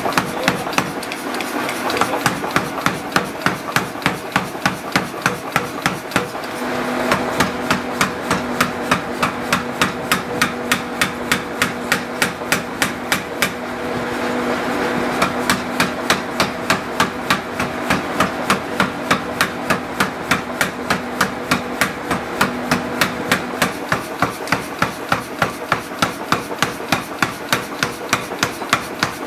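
Belt-driven mechanical power hammer pounding a red-hot steel billet on its anvil: sharp metal blows in a fast, even beat of about three a second. The machine's steady hum sits under the blows through the middle of the stretch.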